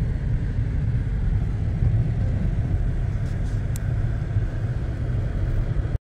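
Inside a moving car's cabin: a steady low rumble from the engine and the tyres on the road.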